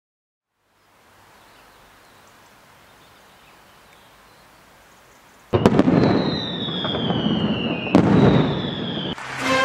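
Fireworks going off: two loud bangs about two and a half seconds apart, each followed by a high whistle sliding down in pitch and crackling rumble, after a few seconds of faint hiss.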